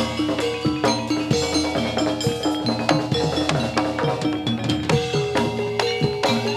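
Javanese gamelan accompaniment for jathilan dancing. Hand drums keep a fast, busy rhythm over ringing struck bronze keys and gongs, and a new ringing note enters about five seconds in.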